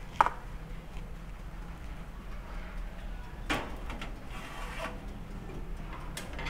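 Kirin countertop toaster oven being loaded: a sharp metallic click just after the start, then a metal baking pan knocking and scraping as it slides onto the wire rack, and the glass door clicking shut near the end.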